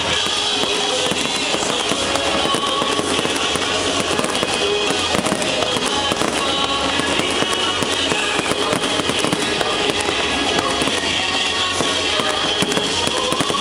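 Aerial fireworks bursting and crackling in quick succession, with music playing alongside at a steady, fairly loud level.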